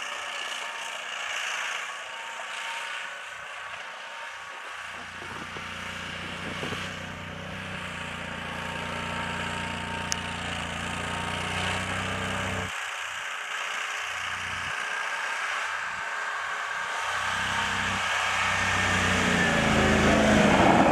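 Argo amphibious all-terrain vehicle on rubber tracks, its engine running under load as it ploughs through deep snow. It grows louder near the end as the vehicle comes up close.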